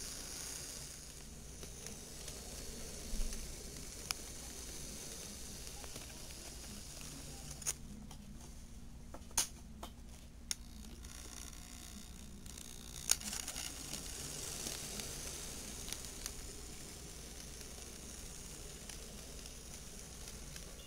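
Athearn HO scale GP40X model diesel locomotive running along the track: a faint low motor hum, strongest in the middle as it passes close, under a steady hiss, with a few sharp clicks.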